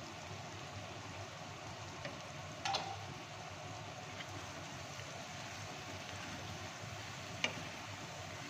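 Vegetables sizzling steadily in a frying pan as they are stirred with a wooden spatula, with a few light knocks of the spatula against the pan, two of them sharper.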